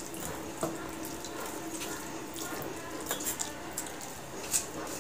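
Wet sounds of hands mixing and eating rice with fish curry on steel plates, with a few small clicks and a sharp clink near the end as a steel bowl is tipped against a steel plate.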